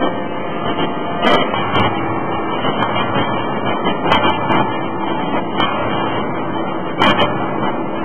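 A 16-ton hydraulic forging hammer strikes a red-hot crankshaft blank, giving several sharp blows at irregular intervals, the strongest about a second in and again about seven seconds in. The blows sit over a loud, steady din of forge-shop machinery.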